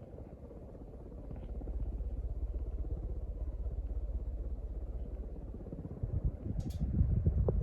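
Emerson K63 ceiling fan running: a low rumble with a fast, even flutter that swells about a second and a half in. A few knocks and short clicks come near the end.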